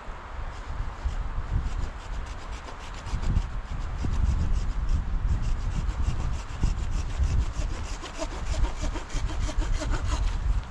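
Folding hand saw cutting through a birch branch in steady back-and-forth strokes, louder from about three seconds in, with wind buffeting the microphone.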